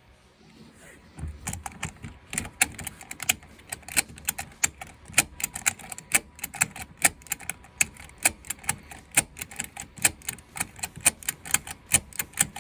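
Seat belt buckle of a 2013 Jeep Wrangler clicking over and over, roughly two to four sharp clicks a second starting about a second in, as the belt is latched and released repeatedly. This works contact cleaner through the buckle's switch, which keeps the seat belt warning light on.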